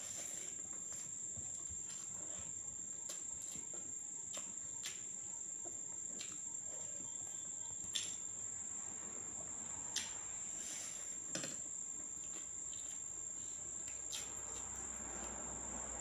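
Steady high-pitched trill of crickets, with a handful of sharp clicks and smacks from someone eating rice and dal by hand off a steel plate.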